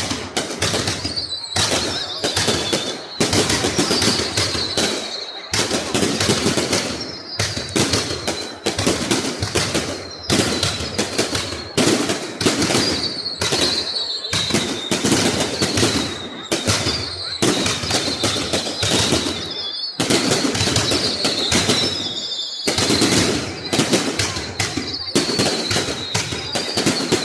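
Fireworks display: rapid, nearly continuous bangs and crackles with only brief pauses. Repeated high whistles, each falling slightly in pitch, sound over the bangs every couple of seconds.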